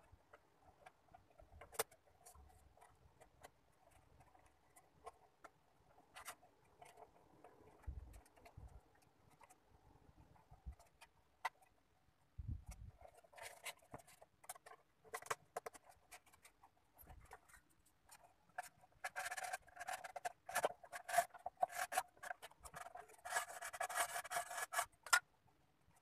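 A small plywood bird box handled by hand: scattered light wooden knocks and clicks, with spells of rubbing and scraping that grow busier in the second half.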